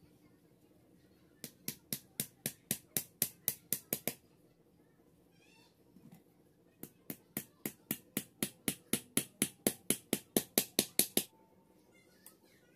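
Pliers used as a hammer tapping a small nail into a thin wooden strip. There are two runs of quick, light taps at about four to five a second, each growing louder as it goes. The first, of about a dozen taps, starts about a second and a half in; the second, of about twenty, starts near seven seconds.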